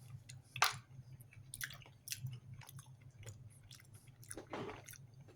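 A person eating MRE chicken stew: wet chewing with scattered small clicks and scrapes of a utensil, the sharpest click about half a second in.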